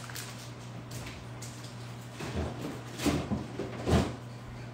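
Refrigerator door being opened and handled, with a few dull thuds and knocks, the loudest near the end.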